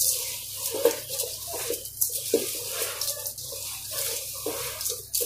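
A hand kneading raw rice and lentils coated in oil, spices and onions in a metal pot: the moist grains squish and rub against the pot in irregular strokes.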